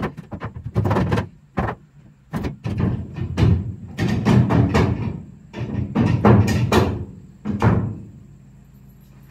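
Red steel crossbar of a truck bed lift being knocked and slid along a pickup's bed rails: a run of irregular metal clanks and thunks, with clusters of heavier knocks through the middle.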